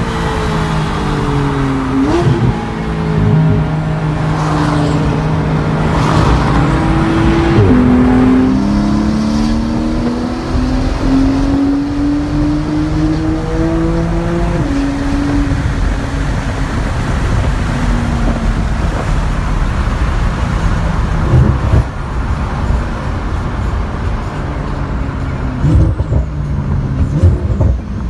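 Porsche 911 flat-six with an aftermarket exhaust, heard from inside the cabin while driving. The revs climb and step down through several gear changes, then ease back to a steadier note, with a few sharp pops near the end.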